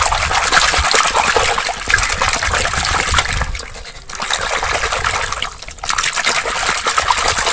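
Water sloshing and splashing in a basin as a hand scrubs a small plastic toy elephant in muddy, soapy water, with two brief lulls.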